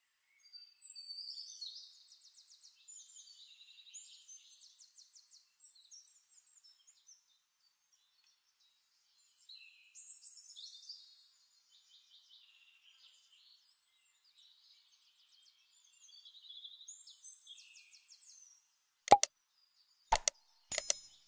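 Faint birdsong of high chirps and quick trills, coming in bursts with short pauses. Near the end come a few sharp, loud clicks from mouse-click sound effects.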